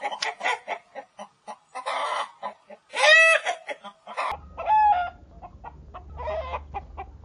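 Chickens clucking in quick, short notes, with a loud drawn-out squawk about three seconds in. A second recording follows, with a steady low hum under more clucking and two shorter squawks.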